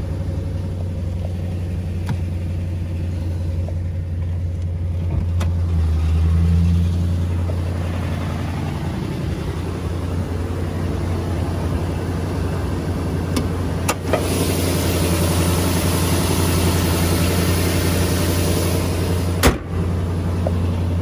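2004 Nissan Titan's 5.6-litre V8 idling steadily, now running on a newly fitted fuel pump, with a brief swell in engine sound about six seconds in. A hiss joins about fourteen seconds in, and there are two sharp clicks.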